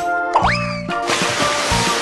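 Children's background music, with a quick rising sliding-pitch sound effect about half a second in, then a hissing whoosh sound effect from about a second in as the picture changes.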